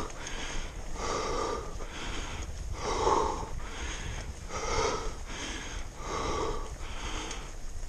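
A person breathing hard and wheezing from the exertion of climbing uphill, with heavy, rhythmic breaths about once a second.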